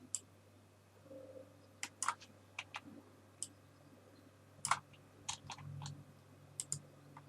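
Scattered clicks of a computer mouse and keyboard, about a dozen, irregularly spaced and some in quick pairs, over a faint steady low hum.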